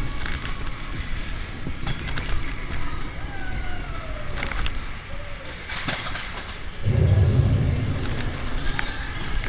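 Space Mountain roller coaster train running through the dark, with a steady rattle and rumble from the track. A heavier, louder low rumble comes in about seven seconds in.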